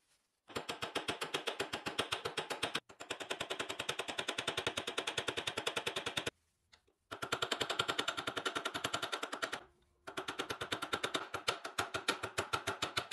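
Small hammer tapping on the metal pin of a wooden screwdriver handle resting on a vise's anvil, peening the pin over. Very rapid light strikes, about ten a second, in four runs separated by short pauses.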